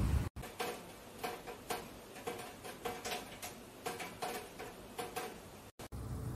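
Light, irregular ticking in a quiet room, about two ticks a second, each tick with a short ring.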